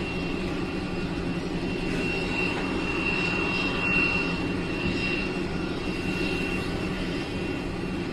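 Jet aircraft engines running steadily: a constant rumble with a thin, high, steady whine over it.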